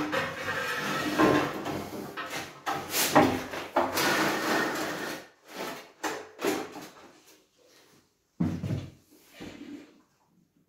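A large porcelain tile being slid and shifted across the bed of a manual tile cutter, scraping for several seconds, then a few short knocks and a thump as it is nudged into line.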